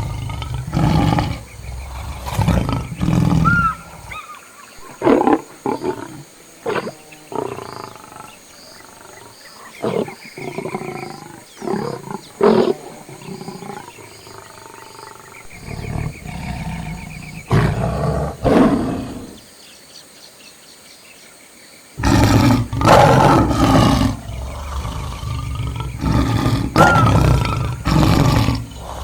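Lions roaring and grunting in loud, irregular calls. The calls thin out to a few short ones in the middle and come back as a loud run for the last seven seconds.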